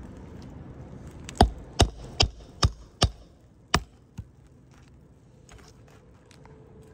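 Hammer striking a snake tool, a hooked shingle nail remover, to work roofing nails loose under old three-tab asphalt shingles: six sharp blows in a quick run starting about a second and a half in.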